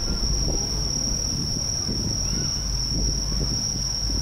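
Crickets trilling steadily in one unbroken high tone, over a low, even outdoor rumble.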